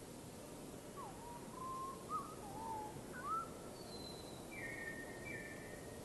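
A songbird singing a phrase of clear whistled notes over a steady hiss. It starts with low notes that glide up and down about a second in, and ends with a few higher, longer notes near the end.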